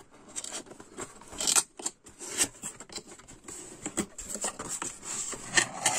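Corrugated cardboard box being handled and opened: scraping and rustling of the cardboard, with a run of short crackles and taps, busier toward the end.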